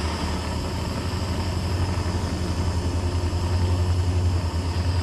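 Hand-held propane torch burning steadily with a fluttering roar and hiss while heating a cast iron hand wheel hub to expand it.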